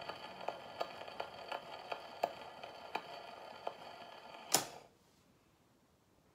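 Portable wind-up gramophone's needle riding the run-out groove of a 78 rpm record after the song has ended: surface hiss with a regular click about every third of a second. About four and a half seconds in comes a short loud noise, and the hiss stops.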